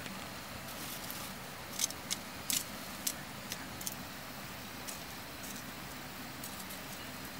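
Knife blade digging and scraping into loose soil, with short crunchy scrapes and soil and grass rustling as dirt is loosened and pushed aside, several sharp ones bunched in the first half and softer ones later, over a steady low background hum.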